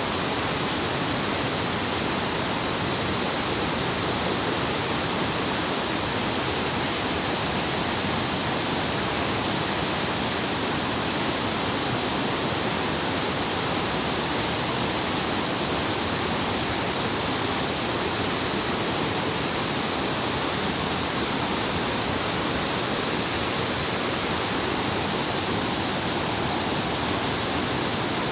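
Floodwater discharging through a dam's open spillway radial gates, a loud, steady rushing of falling water with no change throughout.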